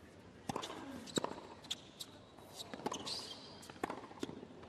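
Tennis ball struck by rackets and bouncing on a hard court during a serve and the rally that follows: a handful of sharp pops roughly a second apart in a hushed arena, with a brief squeak about three seconds in.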